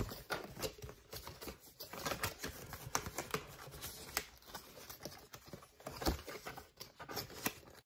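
Handling noise: an irregular run of light clicks and taps from small hard objects being handled, with a louder knock about six seconds in.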